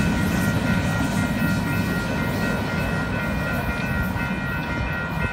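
Freight train cars rolling away on the rails, a steady rumble that fades slightly, with steady high-pitched tones sounding above it.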